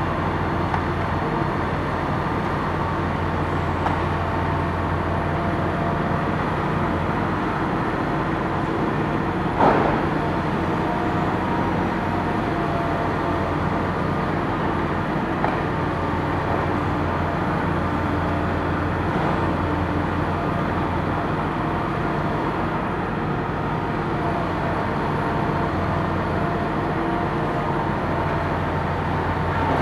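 Diesel engines of Hitachi demolition excavators running steadily, a low drone with a faint hydraulic whine. A few knocks from the demolition work sound over it, the loudest and sharpest about ten seconds in.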